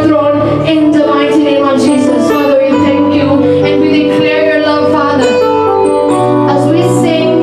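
Slow worship music: sustained keyboard chords over a steady low bass, with a woman's voice singing over it.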